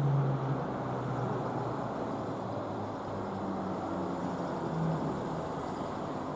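Steady road-traffic noise, with a vehicle's engine hum fading away in the first second and another passing by in the middle.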